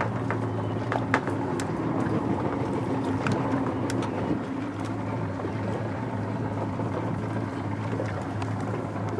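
A boat motor running steadily with a low hum, under wind and water noise, with a few light clicks scattered through.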